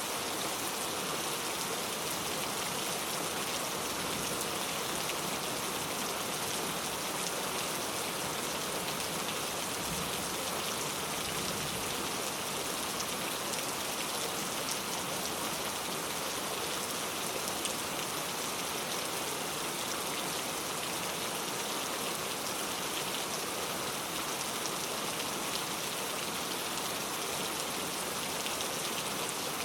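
Heavy rain falling steadily, drops tapping on a road covered with wet leaves.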